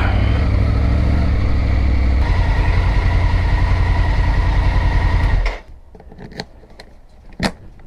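Motorcycle engine idling, its note shifting slightly about two seconds in, then switched off about five and a half seconds in; a few sharp clicks and knocks follow.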